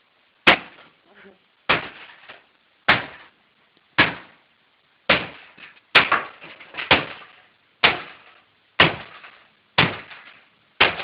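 A hammer striking a Canon Pixma iP4200 inkjet printer hard, about eleven blows, roughly one a second, each a sharp bang that rings out briefly.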